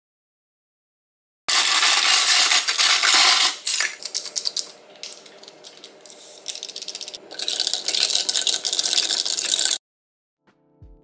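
Ice cubes clinking and rattling in a glass mug of water: a dense clatter for about two seconds, a run of sparser separate clinks, then a second dense clatter that cuts off sharply.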